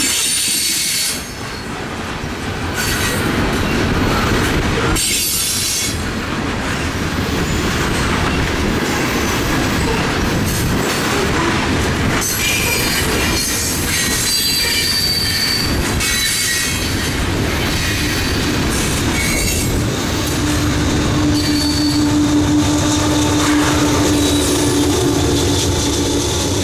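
Freight train rolling past: wheels clicking over the rail joints, with high-pitched flange squeal from the wheels on the rail. A steady low hum comes in near the end.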